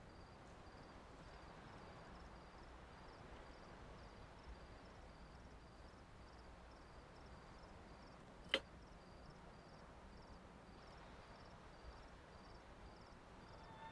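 Near silence: faint hiss of room tone, broken once, about eight and a half seconds in, by a single sharp click.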